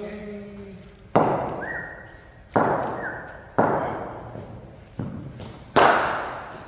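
Sharp knocks of cricket bat and ball, five in all about a second apart, each followed by a long echo in a large indoor hall; the last is the loudest. Two short squeaks come in after the first two knocks.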